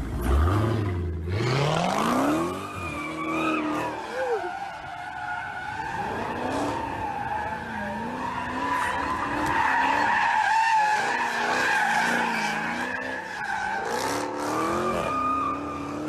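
A car engine revving hard as the car accelerates, its pitch climbing steeply over the first two seconds or so. Then comes a long, wavering high squeal of tyres skidding, with the engine note rising and falling underneath.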